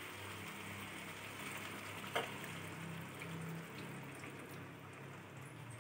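Chicken curry in a kadai cooking faintly with a fine crackle and bubbling, a little water just added to it, while a wooden spatula stirs it; a light knock about two seconds in.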